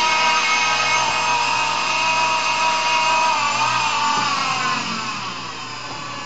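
Small brushless (BLDC) motor spinning a propeller on the end of a pivoting test arm, running with a steady high whine. About halfway through the whine glides down in pitch and grows quieter as the motor slows, its speed set by the driver's speed and angle controllers.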